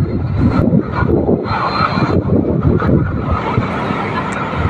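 Wind buffeting the phone's microphone: a loud, gusty low rumble.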